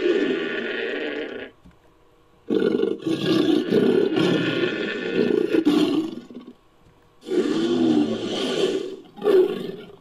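Made-up creature roars for a Homotherium–Megalosaurus hybrid, mixed from sabre-toothed cat and dinosaur sound effects: a roar ending about a second and a half in, a long roar of about four seconds, then a shorter roar and a brief final call near the end.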